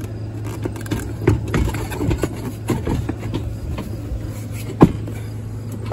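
Plastic UTV seat base being lowered and pressed into place, giving scattered light knocks and rattles and one sharp click about five seconds in, with a steady low hum underneath.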